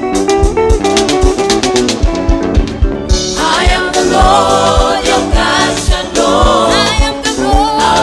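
Live gospel band music: drum kit keeping a steady beat with bass guitar, backing singers, and a woman's lead voice singing over it from about three seconds in.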